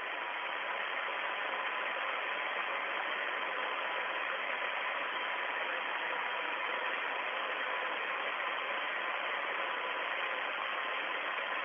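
Steady hiss of an open radio communications channel between transmissions, with a faint steady tone running under it.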